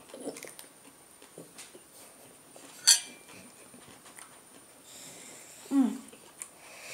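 Someone slowly chewing a mouthful of raw cucumber, with small mouth clicks, a sharp click about three seconds in and a short hummed throat sound near the end.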